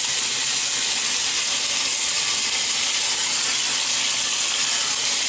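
Water running steadily from a bathroom tap into a sink.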